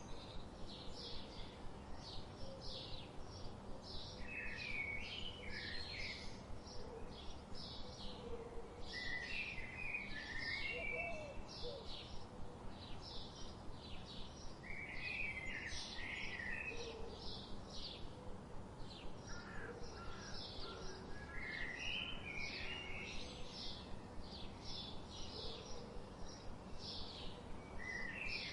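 Birds calling outdoors: a steady run of short, high chirps about two or three times a second, with bursts of lower warbling phrases every few seconds over a soft background hiss.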